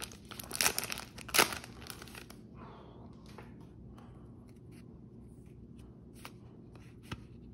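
Foil booster-pack wrapper crinkling and tearing open for the first two seconds or so. Then come faint rustles and small ticks as the trading cards are slid out and handled.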